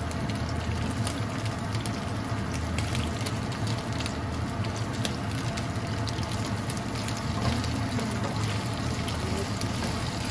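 Grape tomatoes sizzling in olive oil in a frying pan, with frequent small crackles, as a spatula stirs them. A steady low hum runs underneath.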